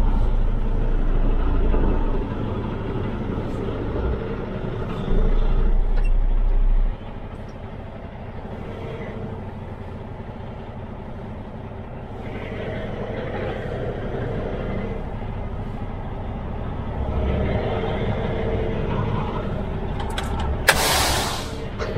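Inside a semi-truck cab with the diesel idling, the power windows motor down in two runs: one at the start, lasting about two seconds, and one about five seconds in, lasting nearly two seconds. Near the end comes a short, loud hiss of air as the air-brake control knob on the dash is worked.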